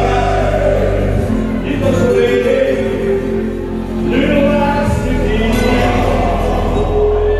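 A man singing a song over loud music with a steady bass line, in sung phrases with long held notes.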